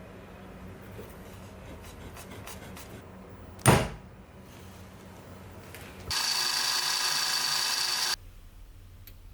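A sharp knock a little under four seconds in, then a pair of meshing test gears spun fast for about two seconds, giving a steady high-pitched gear whine that cuts off suddenly. This is the kind of whine a manual transmission makes in reverse.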